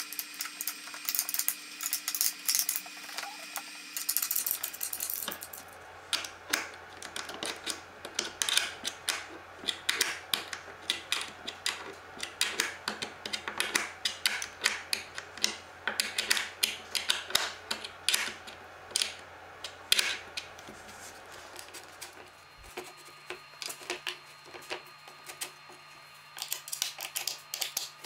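Irregular metallic clicks and taps from bolts, nuts and a wrench as hardware is fitted and tightened in a plywood jig with aluminium rails.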